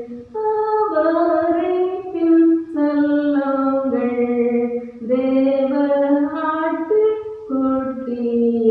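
A woman singing a Christian song solo and unaccompanied, in phrases of long held notes.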